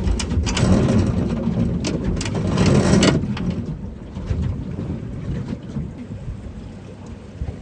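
Loud rushing noise of wind and water on a boat at sea, strongest for about the first three seconds and then settling to a lower rumble.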